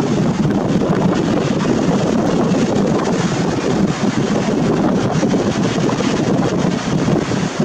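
Steady wind buffeting the camera's built-in microphone: a loud, even rushing noise with no distinct tones.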